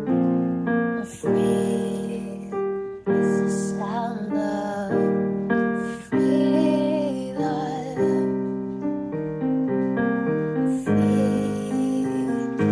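Keyboard intro to a worship song: slow sustained piano chords that change every second or two, each fading after it is struck.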